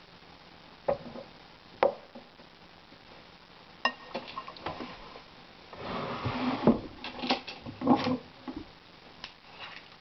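Metal spoon clinking against a ceramic bowl and stirring through cooked vegetables: a few separate clinks, then a louder stretch of scraping and mixing past the middle.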